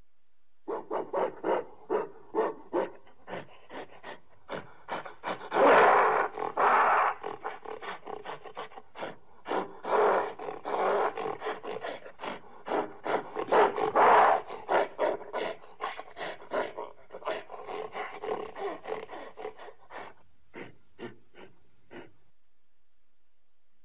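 A long run of short animal calls, several a second. The calls swell in loudness about a quarter of the way through and again near the middle, then thin to a few separate calls near the end.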